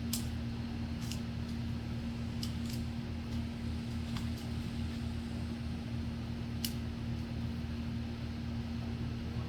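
A steady low machine hum with one constant pitch, with a few faint sharp clicks over it.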